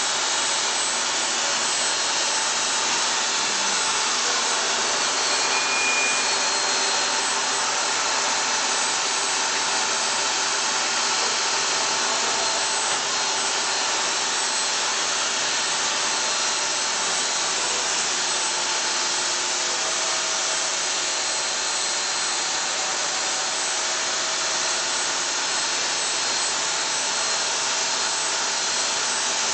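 CNC machine cutting stone with a diamond profile bit: a steady machining noise with faint steady whining tones in it.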